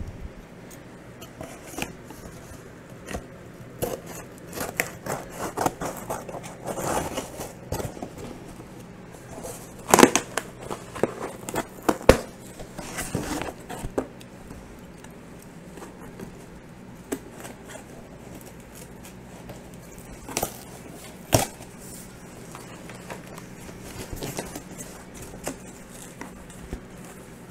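Scissors cutting through packing tape on a cardboard box: scattered scraping, crackling tape and short sharp clicks, with a few louder knocks. Near the end the cardboard flaps scrape as they are folded open.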